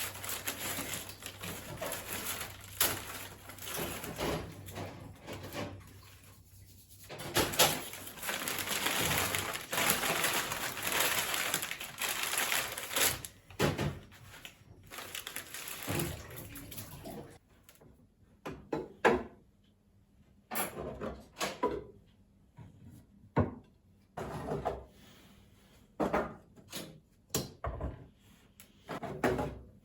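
Hands-on kitchen cleaning: about seventeen seconds of continuous scrubbing or wiping noise with occasional knocks, then a run of separate knocks and clatters as objects are handled and set down.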